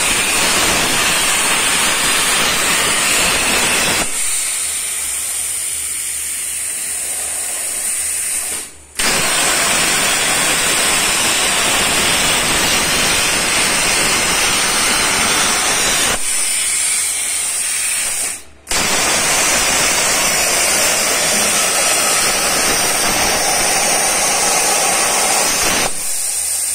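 CNC plasma cutting torch (Z410 table) cutting sheet metal: a loud, steady hiss of the plasma arc and air jet. Twice it falls to a softer hiss for a few seconds, nearly cuts out for an instant, then comes back suddenly at full strength.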